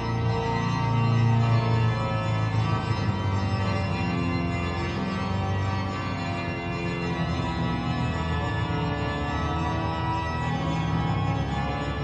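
Organ playing slow, held chords that move to new notes every second or two.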